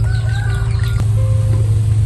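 A chicken clucking over a steady low hum, with a few short wavering calls in the first second.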